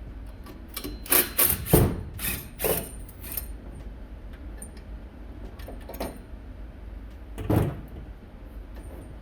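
Metal clanks and knocks of hand tools and the engine-stand bracket on the engine block as the bracket's bolts are undone: a quick run of knocks in the first few seconds, one near the middle and a louder clank near the end, over a steady low hum.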